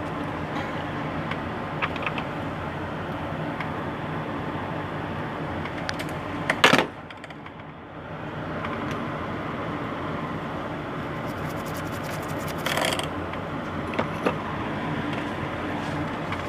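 Steady background hum and hiss, with a few light clicks and clinks of small metal tools being handled. One sharp click comes just before seven seconds in, after which the hum drops away for about a second.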